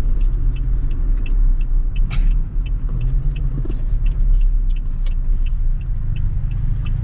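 Car engine and road drone heard from inside the cabin, with an even ticking about two or three times a second: the turn-signal indicator clicking for a left turn.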